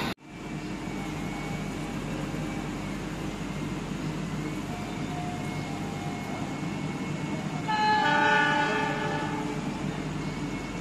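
Steady hum of a passenger train standing at a station platform, with a train horn sounding once for about a second and a half, about eight seconds in.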